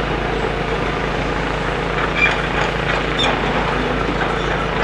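Steady diesel engine noise from demolition excavators working, with a few short metallic clinks about two and three seconds in.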